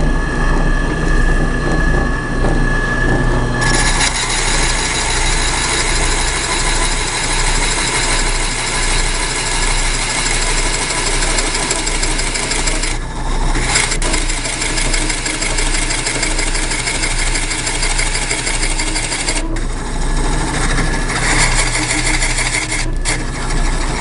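Porter Cable 15-inch drill press running with a steady whine, then a 1¾-inch Forstner bit boring into a wooden board from about four seconds in: a loud, rough cutting noise. The cutting breaks off briefly twice and stops at the very end, leaving the motor running free.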